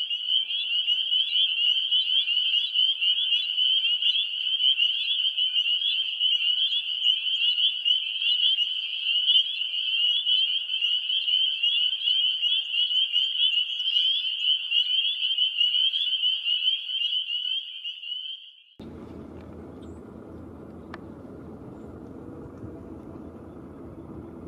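A dense chorus of many frogs calling together in a high, continuous trill, which cuts off suddenly about three-quarters of the way through. After that, a steady low rumble of background noise.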